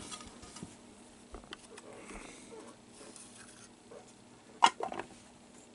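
Trading cards handled with cotton-gloved hands: faint rustling and small scrapes, then a few sharp taps or clicks of card on card or table about four and a half seconds in.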